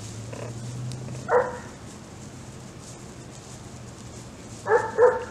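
Four-month-old cockapoo puppy barking: one short, high bark about a second in, then two quick barks near the end.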